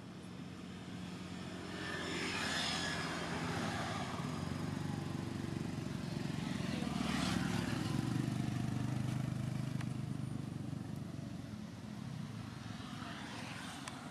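A passing engine: a low hum that swells up over the first few seconds, is loudest in the middle, then slowly fades with its pitch dropping.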